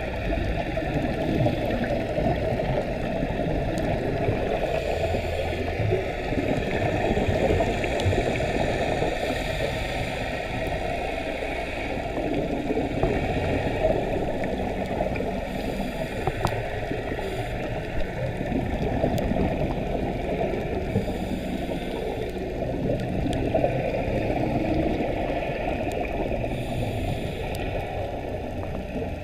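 Steady muffled underwater rumble and gurgling, heard through a dive camera's waterproof housing during a scuba dive.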